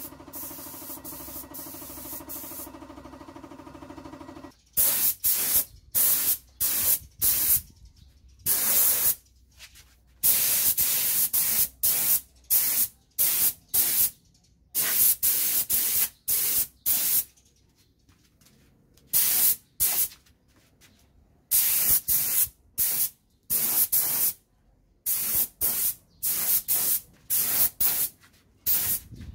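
Gravity-feed air spray gun spraying paint in about two dozen short hissing bursts, each a fraction of a second to about a second long, with brief pauses between trigger pulls. Before the spraying starts, a steady hum with several pitches stops about four and a half seconds in.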